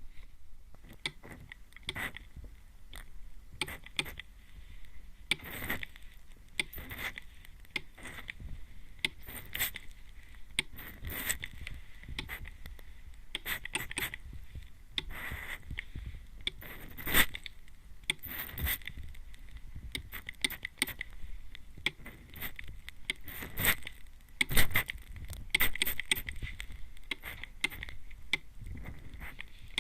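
Plastic mist spray bottle (atomizer) sprayed close to the microphone's ear: many short, hissing spritzes with trigger clicks at irregular intervals, two of them louder past the middle.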